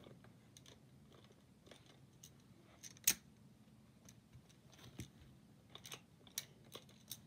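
Plastic magnetic building tiles clicking against each other as a side is snapped onto a cube: a handful of separate clicks, the loudest about three seconds in, with faint handling between.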